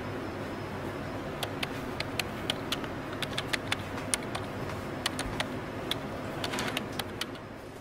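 Irregular light clicks and clinks, a few a second, with a slight ring to each, over a steady low hum; they begin about a second and a half in and thin out near the end.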